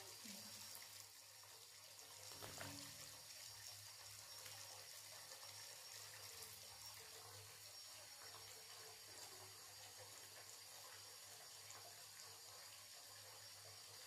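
Faint, steady running water, as from a bathtub tap. There is a brief knock about two and a half seconds in.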